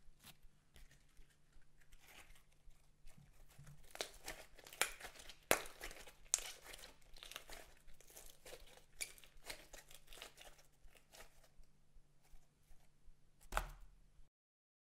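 Wet, sticky glitter slime being stretched, squeezed and pressed by hand: a dense run of sticky clicks and pops. One louder thud comes near the end.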